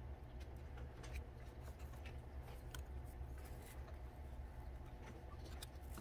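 Faint, scattered light clicks and taps of thin laser-cut wooden kit pieces being handled and pressed together by hand while glued, over a steady low hum.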